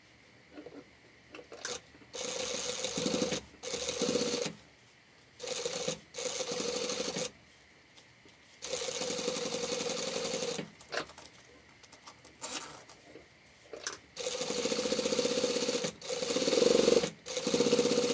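Flatbed sewing machine stitching a zipper onto a fabric strip in short runs of one to two seconds, stopping and starting about seven times, with a few soft clicks in the pauses.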